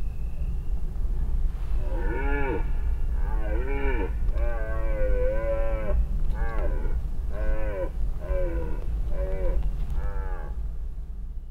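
Red deer stag roaring in the rut: a series of about eight rough roars, one clearly longer than the others near the middle. A steady low rumble runs underneath.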